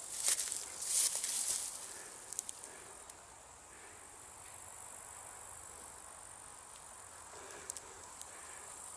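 Steady, high-pitched chirring of insects. In the first two seconds it is overlaid by several louder bursts of rustling, and a few faint clicks follow later.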